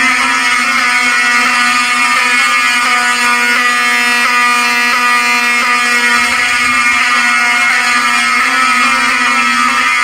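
Fire alarm horns, rebranded Wheelock 7002-series horn/strobes, sounding together in one loud, steady, continuous buzzing tone: the system is in alarm after a Fire-Lite BG6 pull station was pulled.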